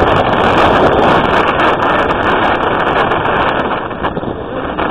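Strong wind buffeting a phone's microphone: a loud, steady rushing noise that eases slightly near the end.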